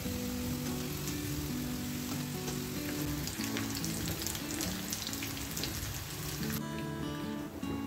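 Hot oil sizzling and crackling as potato-stuffed wheat-flour kachoris deep-fry in a pan. The frying hiss drops away near the end, leaving background music with held low notes.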